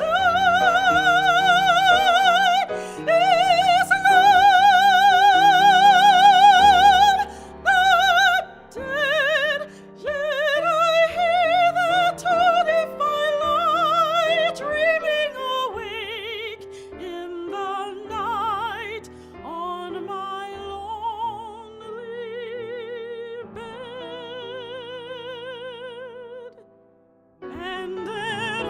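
Soprano singing a classical art song with piano accompaniment, her voice carrying a wide vibrato. Long high notes are held in the first several seconds, later phrases sit lower, and there is a short pause near the end before the voice comes back in.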